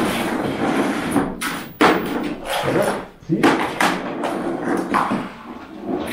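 Indistinct talking, not made out as words, with several short knocks or thumps.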